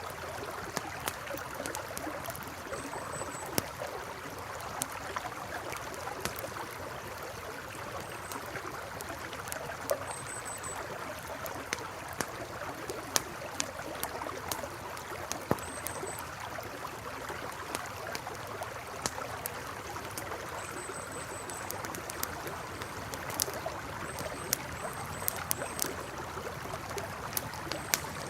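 A river flowing steadily while a campfire crackles, with sharp pops scattered throughout. Short high chirps come and go in the background.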